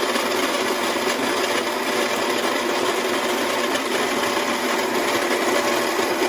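Baratza Encore electric burr coffee grinder running on continuous grind, its motor turning 40 mm conical burrs through coffee beans. Loud and steady, a motor hum over the noise of the grinding.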